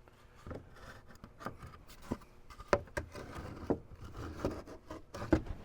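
Loose wooden boards being handled and tried for fit in a cabinet gap: irregular wooden knocks and clacks with light scraping and rubbing, the sharpest knocks about two and three and a half seconds in.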